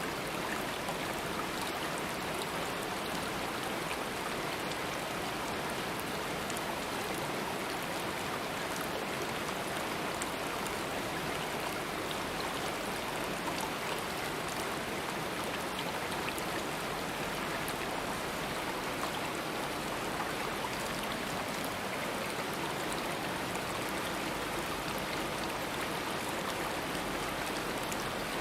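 Stream water running over rocks, a steady rushing and babbling with small splashes throughout.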